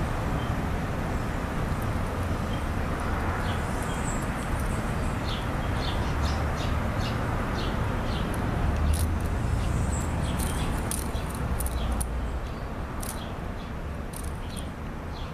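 SpinYo fidget spinner spun and handled in the fingers: irregular light clicks and ticks, thickest in the middle and later part, over a steady low rumble.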